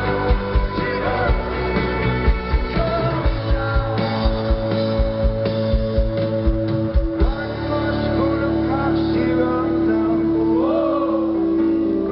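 Indie rock band playing live: drums, electric guitars and bass under a singing voice. About seven seconds in, the drum hits stop and a held chord rings on under the vocals.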